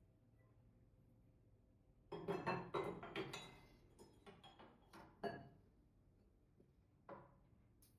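Light metallic clinks and knocks, as of singing bowls being handled against each other: a quick cluster with short ringing about two seconds in, then a few scattered taps, the last near the end.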